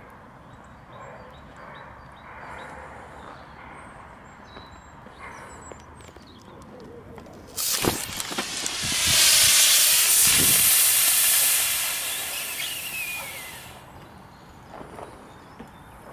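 Lithium-polymer (LiPo) battery pack venting gas in thermal runaway: a loud hiss that starts suddenly about halfway through, swells, then fades away over some six seconds.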